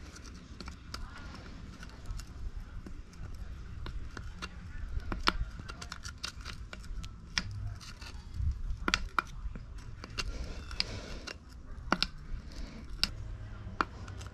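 Irregular sharp clicks and light metallic taps of hand tools and parts being handled while an air suspension strut is taken apart, over a low steady hum.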